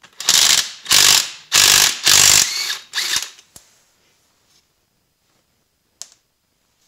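DeWalt cordless impact wrench hammering at a rust-seized bolt on a Subaru R160 rear differential, in several short bursts over about three seconds before it stops.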